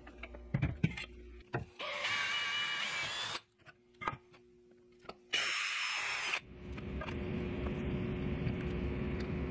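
Cordless drill running in three bursts, the last the longest and roughest, drilling a plywood mounting board that is to be fixed to concrete with Tapcon screws. A few wooden knocks come in the first second or so as the board is handled.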